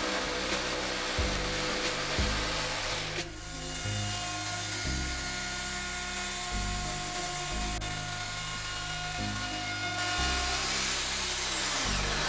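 A jigsaw cutting a walnut slab, then, after a sudden change about three seconds in, a plunge router running steadily with a whine as it routs the edge of a tabletop. Background music with a steady beat plays throughout.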